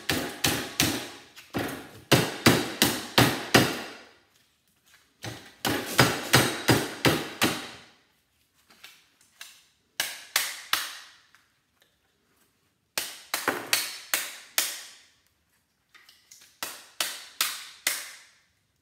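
A hammer pounding the steel core of a small transformer clamped in a bench vise, knocking the steel loose to free the copper coils. The blows come in runs of several quick strikes, about three or four a second, with pauses of a second or two between runs. Each strike is sharp and metallic and rings briefly.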